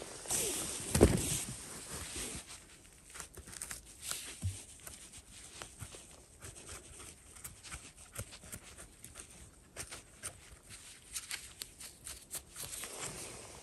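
Footsteps through forest undergrowth: dry leaves and twigs crackle and rustle in irregular small clicks, with a louder rustle about a second in.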